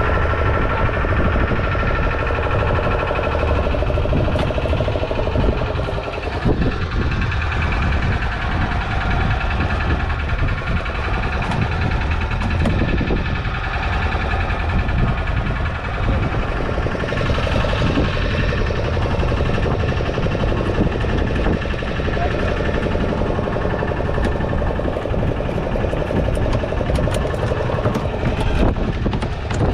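Fishing boat's engine idling steadily, a continuous low rumble.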